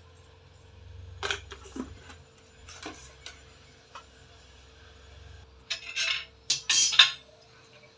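Stainless steel lunch containers, lids and a steel spoon clinking as they are handled: a few light clinks in the first three seconds, then a louder clatter of metal on metal about six to seven seconds in. A faint steady hum runs underneath.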